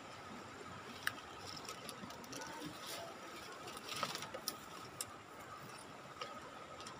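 Faint steady rush of a flowing river, with a thin high steady tone and a few sharp clicks scattered through, the loudest about a second in and a cluster around four to five seconds in.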